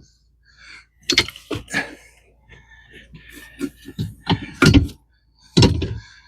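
Irregular knocks, thuds and rustles of compost and small potatoes being handled as a pot of potatoes is tipped out and searched by hand.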